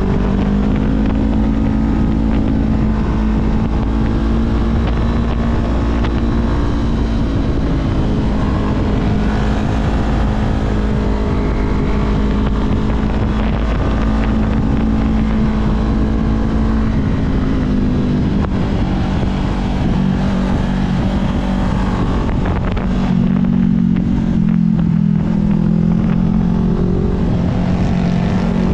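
Honda CB500F's parallel-twin engine running under way, its revs rising and falling through the bends, with wind noise on the microphone.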